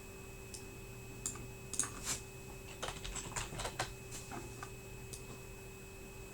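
Light clicks and taps, irregular and about a dozen of them, bunched between about half a second and five seconds in, over a faint steady electrical hum.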